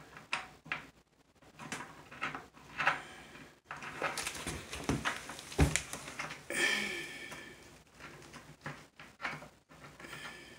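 Scattered light clicks, rustles and knocks of hands working at a toilet base, threading nuts onto the closet bolts, with one sharp knock about five and a half seconds in.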